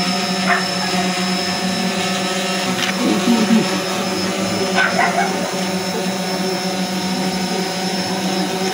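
A steady droning hum holding a few fixed tones, with faint murmuring voices from the crowd now and then.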